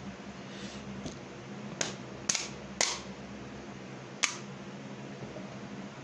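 Four short, sharp clicks or taps: three about half a second apart, then a last one about a second and a half later, over a faint steady low hum.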